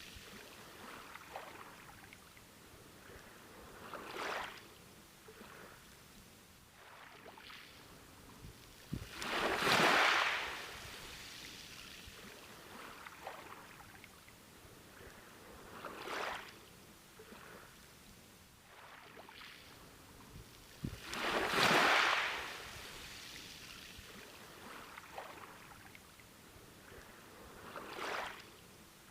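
Ocean waves breaking and washing up a beach, one surge swelling and fading roughly every six seconds over a low steady wash, two of the surges much louder than the others.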